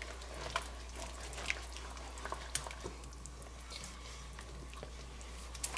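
Country cream gravy cooking in a pan: faint, scattered small pops and clicks over a low steady hum.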